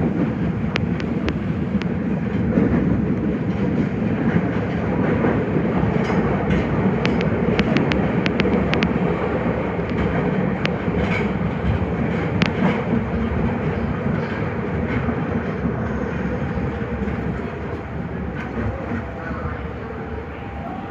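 Nagoya Municipal Subway 5050 series train running on the rails: a steady wheel-and-track rumble with scattered sharp clicks, growing somewhat quieter over the last few seconds.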